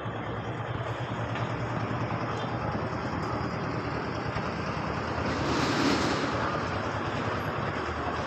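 Street traffic noise: a steady rumble of passing vehicles, with one vehicle growing louder and passing close about six seconds in.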